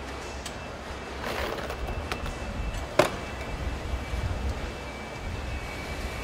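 Car assembly line noise: a steady low machinery rumble, with a short hiss about a second in and a sharp clank about three seconds in as a front-end module on a lift-assist arm is guided onto a car body.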